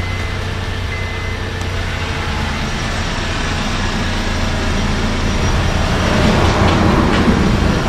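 Honda Elysion minivan's engine idling steadily just after being started on fresh oil following an oil change, growing a little louder near the end.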